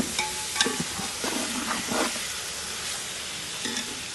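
Desi chicken pieces with tomatoes and green chillies frying in a large metal pot, a steady sizzle, while a metal spoon stirs and scrapes the pot with several knocks against its side.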